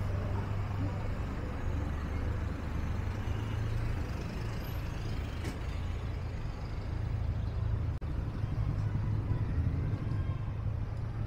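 Street traffic: motor vehicles running with a steady low rumble.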